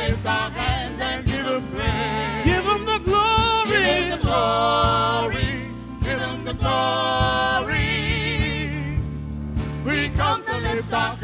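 Live gospel music: a voice sings long held notes with vibrato and quick melismatic runs over keyboard accompaniment and a steady bass line.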